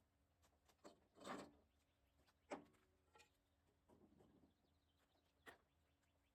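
Near silence with a few faint clicks and knocks, three of them standing out: about a second in, halfway through, and near the end.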